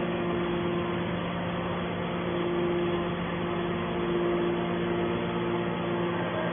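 Hydraulic metal baler's electric motor and hydraulic pump running with a steady hum, its higher tone swelling for a few seconds midway.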